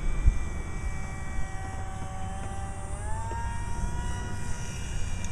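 RC model airplane's motor and propeller whining steadily as it flies past, the pitch rising about three seconds in.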